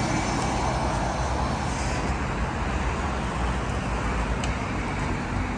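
Steady road traffic noise of a city street, a continuous rumble of passing vehicles.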